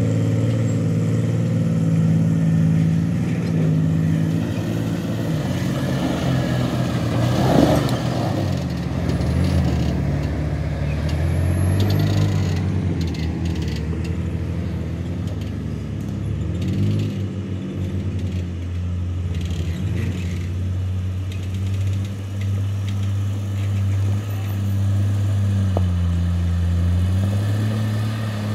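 Jeep Cherokee engine pulling slowly up a steep dirt hill, its pitch rising and falling with the throttle, with a single sharp knock about seven and a half seconds in.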